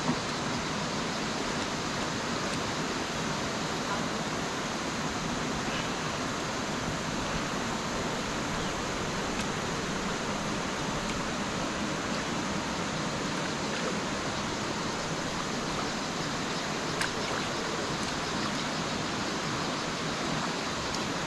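Steady rushing of river water, an even hiss with no rhythm or pitch.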